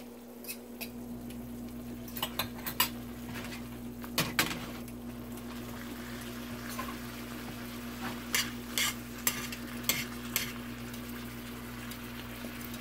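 A metal fork stirring and tossing pasta in a stainless-steel skillet, clinking sharply against the pan in scattered clusters, over a steady low sizzle of the sauce and a steady hum.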